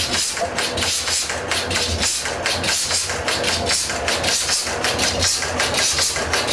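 1924 Waterloo Boy stationary engine catching after being turned over by its flywheel, then running with an even, rhythmic beat of knocks.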